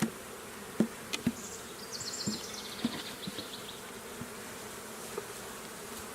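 Honeybees buzzing around an opened hive, with several sharp knocks in the first three seconds as the wooden bottom board is pried at. A short, high, rapidly pulsing sound comes in around two seconds in.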